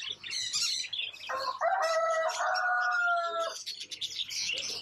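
Many caged small birds chirping without a break. About a second in, a rooster crows once, a call of about two seconds that falls slightly at the end.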